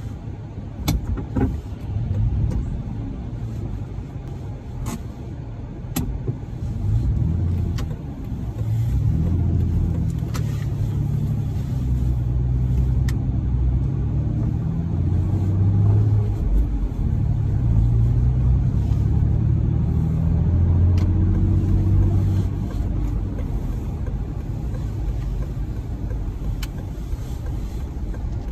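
A car driving on wet city streets, heard from inside the cabin: a steady low engine and road rumble, whose engine note rises and falls in steps as the car pulls away and changes speed, loudest in the middle stretch. A few sharp clicks come at irregular moments.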